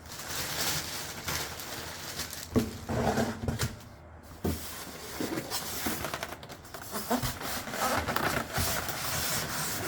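Rustling packaging and light knocks as a boxed speaker is handled and fitted back into its carton.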